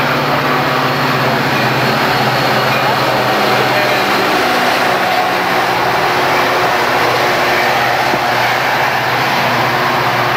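Metra diesel locomotive and bilevel passenger cars passing at close range: a steady engine drone for the first few seconds as the locomotive goes by, then the continuous rolling rumble of the cars' wheels on the rails.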